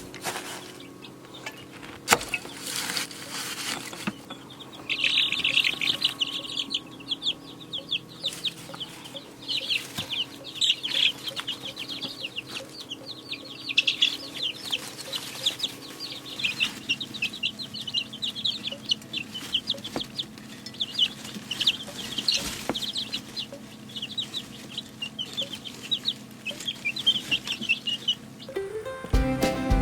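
Chicks cheeping: a long run of rapid, short, high-pitched peeps.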